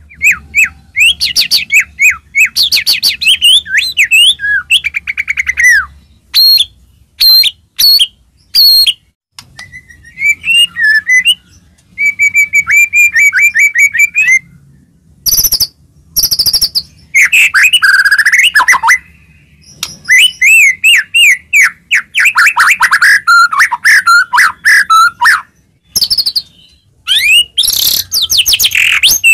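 White-rumped shama (murai batu) in full song: loud, varied phrases of rapid trills, looping whistles rising and falling, and sharp chips, separated by short pauses.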